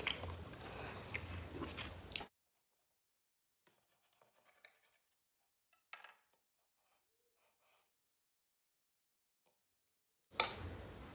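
Quiet chewing of pizza with a few soft mouth clicks for about two seconds, then near silence broken by a few faint ticks as the plate is handled. A sudden sharp sound near the end, when a slice of pizza is pulled from the plate.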